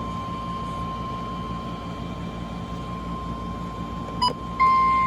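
Weather-radio receiver hiss with a faint steady tone and low hum, a click about four seconds in, then the NOAA Weather Radio 1050 Hz warning alarm tone comes on loud and steady near the end, signalling a warning about to be read.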